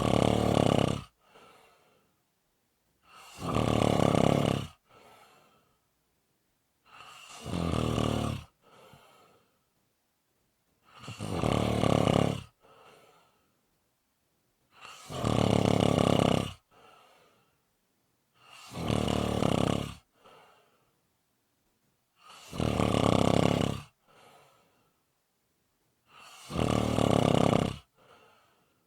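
A person snoring in a slow, regular rhythm: about eight loud, rattling snores, one roughly every four seconds, each followed by a short, softer breath, with quiet gaps in between.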